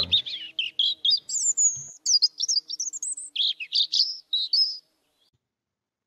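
European robin singing: a fast run of high, varied warbling notes that sweep up and down and stop about five seconds in.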